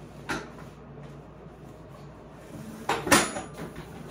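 Linodi workout bench being moved and set in place: a single knock a moment in, then a louder clatter of knocks about three seconds in.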